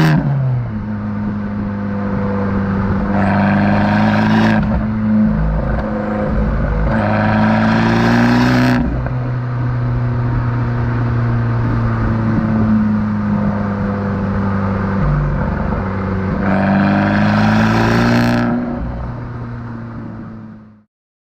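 2017 Abarth Competizione's 1.4-litre turbocharged four-cylinder through a Monza exhaust with its valve flap wired open, running steadily and climbing in revs three times, each climb ending abruptly. The sound fades out and stops shortly before the end.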